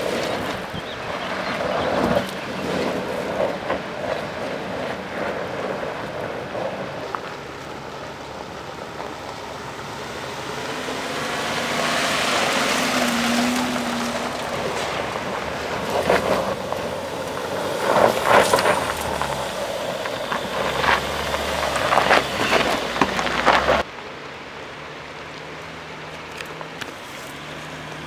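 Mercedes-Benz GLE SUV crawling over a rough dirt and gravel track: engine running with tyres crunching over stones and sharp knocks now and then. Near the end the crunching cuts off and a steady engine hum remains.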